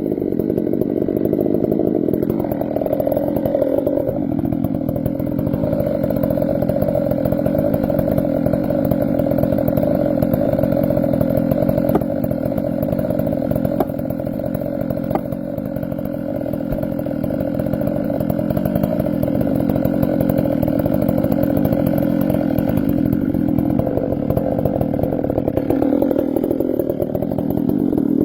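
Chainsaw running steadily at high revs, working through a cut. Its pitch shifts a little twice, about two to four seconds in and again near the end, as the load on the chain changes.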